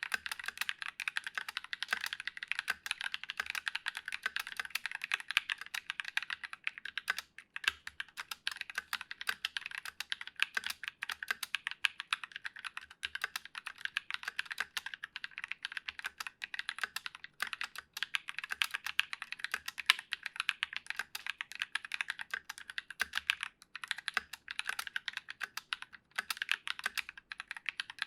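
Fast, continuous typing on a Massdrop ALT mechanical keyboard with lubed Drop Holy Panda tactile switches, GMK keycaps and unlubricated plate-mount stabilizers, with brief pauses about seven seconds in and near the end.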